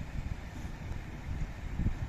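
Wind buffeting the microphone in low gusts over a steady outdoor hiss.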